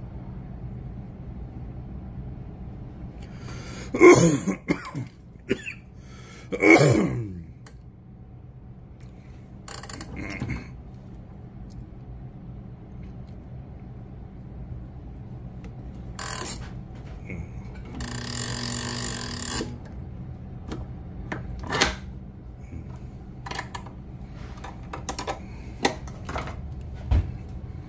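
Two short, loud guttural throat sounds from a man, each falling in pitch, about four and seven seconds in, over a steady low hum. Later come light clicks and taps of hands working braided fishing line and small tools, with a brief whir of about two seconds about two-thirds through.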